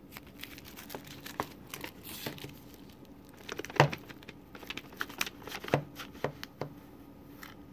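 Plastic shrink wrap on a Blu-ray case crinkling as the case is handled and turned over, with scattered sharp clicks and crackles. The loudest comes about four seconds in.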